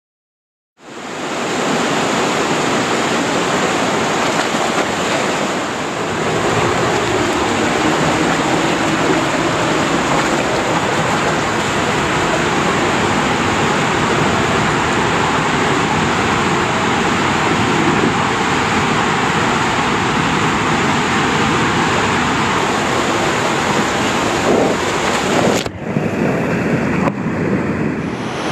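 Rushing water and a rider sliding down an enclosed tube water slide, a loud steady rush that starts about a second in. Near the end it splashes down into the landing pool and the sound turns muffled for a couple of seconds.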